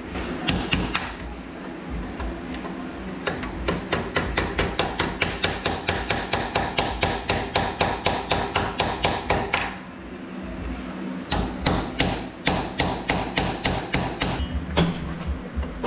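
Hammer tapping rapidly on metal, about five light strikes a second, in two runs: a long one a few seconds in and a shorter one from about eleven seconds. The strikes knock round the threaded preload collar on a Fox coilover shock.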